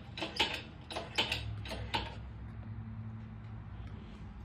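Scooter being hoisted off the floor on ratchet straps and a hanging scale: creaks and sharp clicks from the straps and hook. From about a second and a half in, a steady low hum runs under them.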